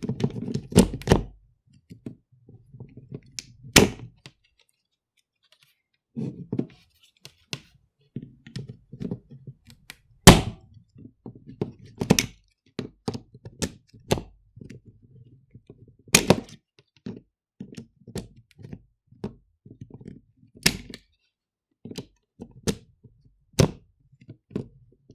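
Mobile phone charger plug being pushed into and pulled out of a power strip socket again and again: sharp plastic clicks and knocks every second or two, with low handling rumble between. The loudest knock comes about ten seconds in.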